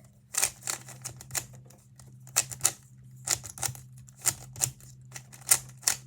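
Rubik's cube being scrambled by hand: quick plastic clicks of the layers being turned, coming in irregular runs of a few turns at a time.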